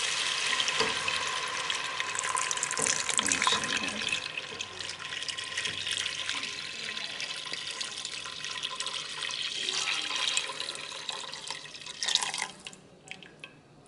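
Chicken broth poured in a steady stream from a measuring cup into a stainless steel stockpot of sautéed onions, splashing into the liquid already in the pot. The pour stops about a second before the end, and a few light clicks follow.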